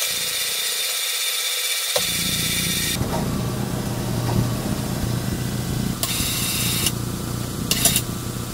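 Electric ceiling hoist motor humming steadily as it holds and lifts a fifth-wheel hitch over a pickup bed, after a brief high whir at the start, with short high whirring bursts near the end.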